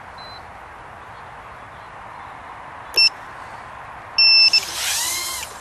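Steady hiss, with two beeps from the Tinyhawk 2's piezo buzzer: a short one about three seconds in and a longer one just after four seconds. Then comes the whine of the micro drone's motors, rising and falling in pitch for about a second.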